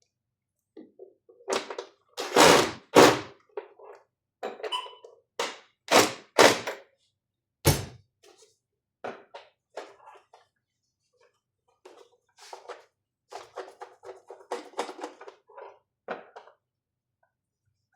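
Hard thunks and clicks of Mindray SV300 ventilator parts being handled and fitted into place during reassembly. The heaviest knocks fall in the first eight seconds, followed by a run of lighter clicks and taps.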